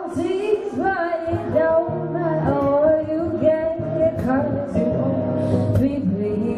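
A woman singing a melody live, accompanied by two acoustic guitars strummed and picked.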